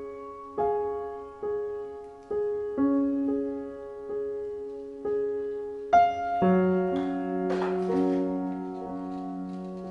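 Background solo piano music: slow, soft notes and chords struck one at a time and left to ring, with a deeper chord coming in about six seconds in.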